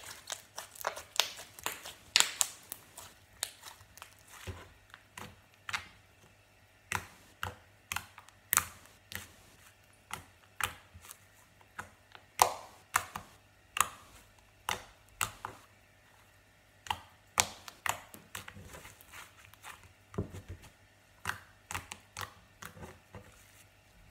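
Translucent red slime being squished, pressed and stretched by hand, giving sharp clicking pops at an irregular pace of about one or two a second.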